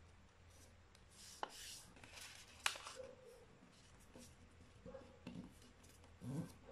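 Faint rustling and rubbing of a sheet of A4 printer paper as hands fold and crease it, with two sharp clicks in the first three seconds.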